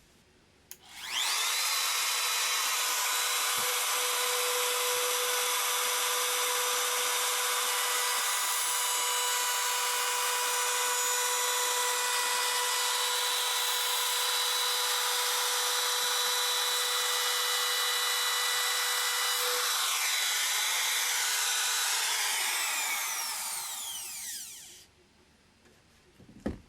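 An electric power tool's motor spins up about a second in, runs at steady high speed with a high whine, then winds down with falling pitch near the end and stops.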